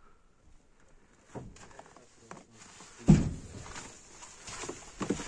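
Footsteps crunching in packed snow, irregular and soft, with one heavier thump about three seconds in.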